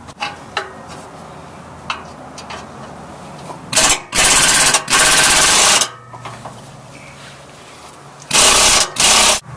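Air impact wrench hammering in short bursts, three in a row a few seconds in and two more near the end, spinning off the rusty bolts and nuts that hold a catalytic converter pipe on. Light metal clicks and knocks come between the bursts.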